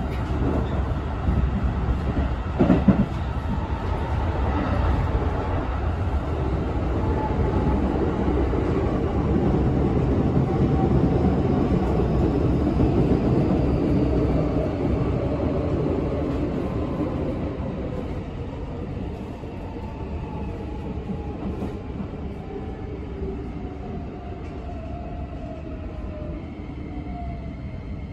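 Keikyu New 1000 series (1500 subseries) electric train running, heard from inside the car: steady wheel-and-rail noise with a single sharp knock about three seconds in. In the second half the running noise drops and the motor and VVVF inverter whine falls in pitch as the train slows. The uploader takes the inverter for a Toyo SiC unit like the 1890 subseries'.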